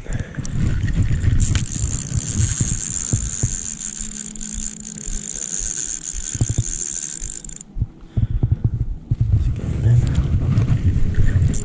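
Fixed-spool fishing reel buzzing steadily for about six seconds, then cutting off abruptly, while a hard-pulling fish is played on the rod. Wind rumbles on the microphone throughout.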